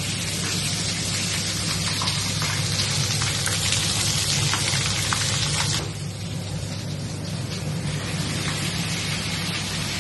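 Turmeric and garlic paste sizzling hard in hot oil in a kadai, with a few light spoon clicks. The sizzle is loudest for about six seconds, then eases, over a steady low hum.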